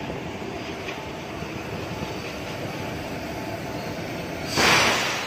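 Steady running noise of a standing three-phase electric locomotive, heard close beside its underframe. About four and a half seconds in comes a short, loud hiss.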